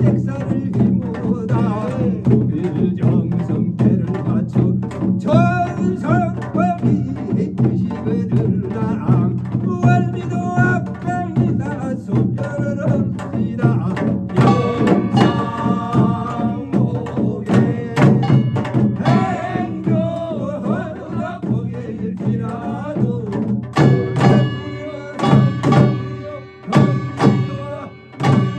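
Binari, a Korean ritual blessing chant, sung by a male lead singer over continuous pungmul drumming on barrel drums (buk) and janggu hourglass drum. Near the end the accompaniment turns sharper, with held ringing tones.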